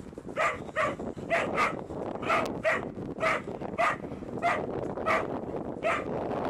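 German spitz dogs barking in play while they wrestle and chase: a string of short, high barks, about two a second.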